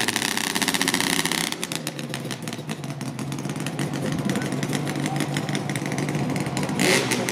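Sport bike engine revving hard while the rear tyre is spun in a smoking burnout, then dropping about a second and a half in to a lower, steadier running note.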